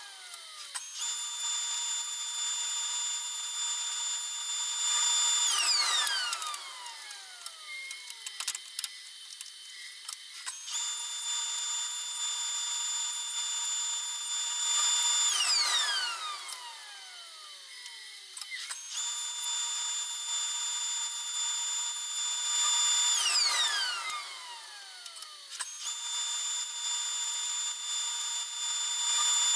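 Power drill running at a steady high whine for about five seconds at a time, then winding down with a falling pitch as the trigger is released. The run starts again about every eight seconds, with small clicks and handling noise between runs.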